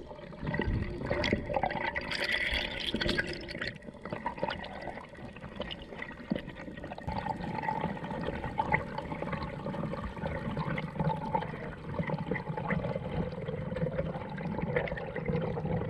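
Underwater water noise on a diver's camera: water rushing and bubbling past the housing during the ascent, with a louder burst of bubbling about two seconds in and a faint steady hum underneath.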